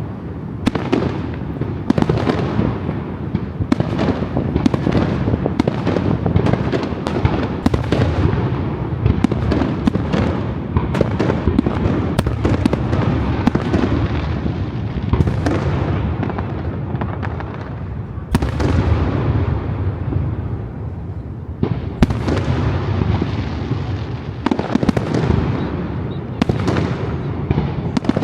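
Aerial fireworks bursting in a rapid, continuous barrage: many sharp bangs, several a second at times, each followed by a rolling boom, with a brief lull about two-thirds of the way through before the bangs pick up again.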